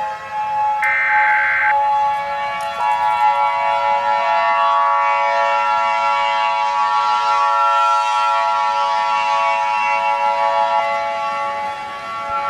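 Emergency-alert siren tones: a short burst of buzzing data noise about a second in, then a held siren chord of several steady tones, with a brighter tone joining at about three seconds and dropping out near the end.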